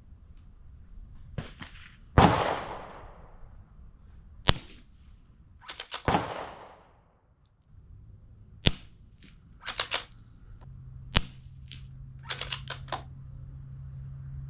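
Suppressed Savage Mark II FV-SR bolt-action .22 LR rifle firing subsonic rounds through a Sig Sauer SRD22X suppressor: a few short, quiet cracks a few seconds apart, two of them trailing off in a long echo, with small metallic clicks of the bolt being worked between shots.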